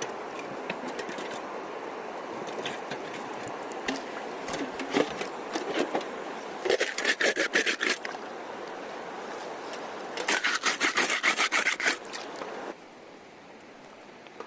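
Rapid back-and-forth rubbing or scraping strokes, about seven or eight a second, in two bursts of about a second and a half each.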